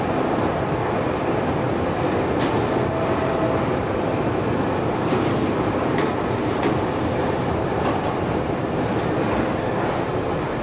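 1977 KONE inclined elevator car travelling up its incline on rails: a steady running noise with a few faint ticks.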